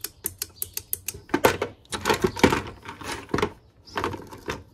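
Loose small metal and plastic drill parts clicking and clattering against each other and a clear plastic bin as they are handled and pushed aside, a quick irregular run of sharp taps.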